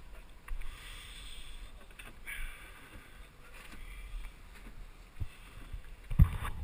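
Camera handling noise: rustling and wind on the microphone as the camera is moved about, with loud knocks from the camera being bumped near the end.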